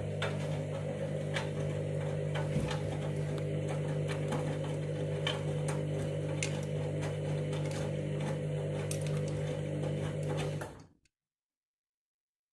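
Candy washing machine running with a steady mechanical hum, scattered clicks and rattles over it. The sound cuts off suddenly near the end.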